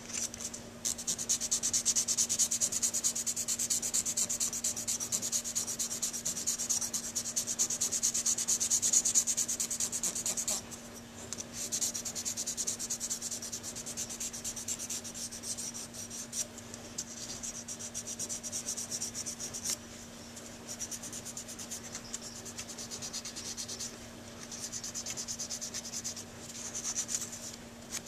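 Sandpaper rubbed rapidly back and forth by hand over a metal Dukoff saxophone mouthpiece: a fast, scratchy hiss, heavier for the first ten seconds or so, then lighter runs of strokes with short pauses. The sanding takes out the scratches left by the previous, coarser grit.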